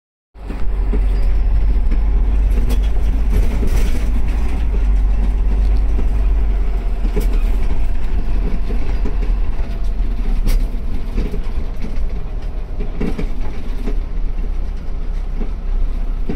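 Cabin noise of a dual-mode vehicle (a converted Toyota Coaster minibus) driving on the road in bus mode: a steady low diesel engine drone and tyre noise, with a few short knocks and rattles.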